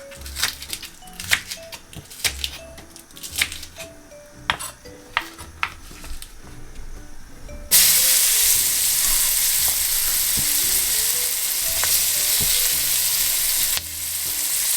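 Knife chopping spring onions on a board in quick, irregular strokes, then about eight seconds in a sudden loud sizzle as the chopped onions hit the hot oil and curry powder in the pot. The sizzle dips briefly near the end and picks up again.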